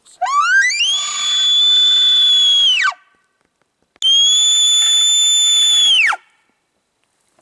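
Two elk bugles. The first climbs in steps from a low note to a high, steady whistle, holds it about two seconds and drops off sharply. The second starts on the high whistle, holds about two seconds and falls away. A fainter low tone runs beneath both.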